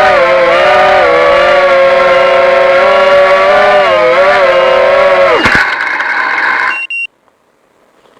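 FPV racing quadcopter's motors and propellers whining at a high, steady pitch that wavers up and down with the throttle. About five and a half seconds in the pitch drops sharply as the motors spin down. A short high beep follows about a second later, then it goes almost quiet.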